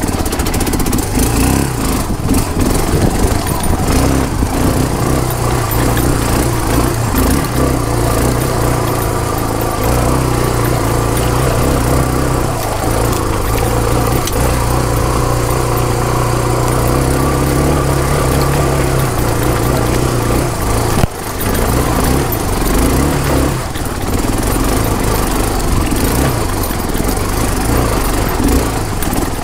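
Motorcycle engine running steadily under way as the bike is ridden along a rocky trail, with a brief dip in the sound about twenty-one seconds in.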